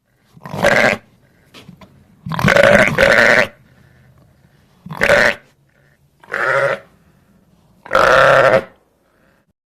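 Lamb bleating: about six short calls with quiet gaps between them. The last call, near the end, is the longest.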